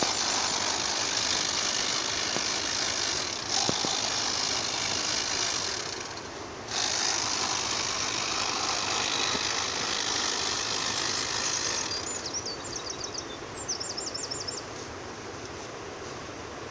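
Battery-powered Bosch tea-harvesting machine running and shearing tea shoots: a steady, noisy whirr that dips briefly about six seconds in and falls away after about twelve seconds, leaving a fainter steady noise.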